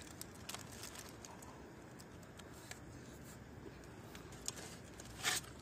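Faint sounds of eating a foil-wrapped burger: scattered small clicks of chewing and wrapper crinkling over a quiet outdoor background, with a couple of slightly louder clicks near the end.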